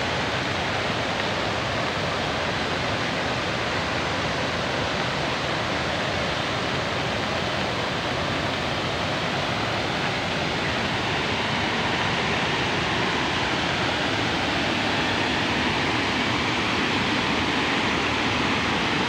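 A wide waterfall in full flow, white water cascading over a broad rocky step: a steady, loud rush of water.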